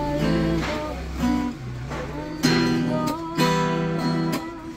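Acoustic guitar being strummed, with a few sharp chord strokes in the second half and the chords left ringing between them.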